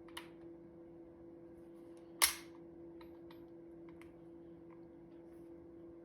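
Faint clicks of metal gun parts being handled, and about two seconds in one sharp metallic tap with a short ring: a hammer or punch driving a pin back through a Winchester SX4 shotgun's action.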